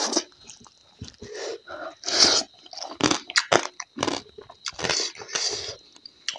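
A person chewing and biting crunchy food close to a clip-on microphone, with loud irregular crunches about twice a second.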